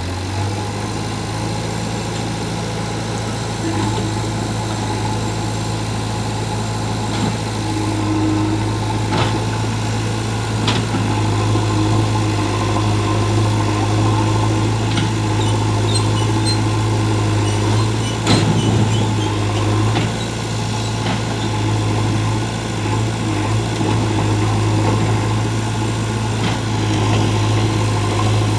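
Heavy diesel engine running steadily at a constant low pitch, with a few sharp knocks scattered through it.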